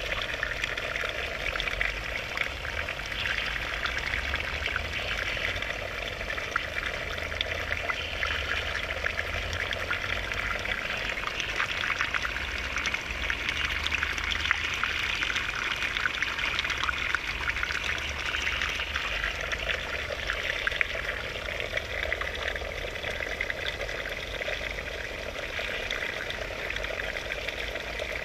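Running water: a steady trickling and splashing hiss full of small droplet clicks, over a low rumble.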